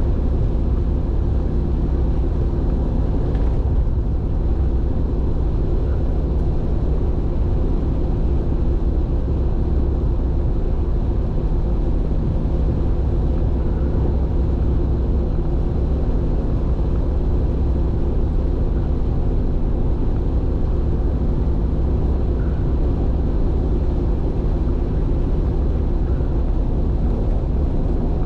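Steady low rumble of a car travelling at expressway speed, tyre and engine noise heard from inside the car, with a constant low hum.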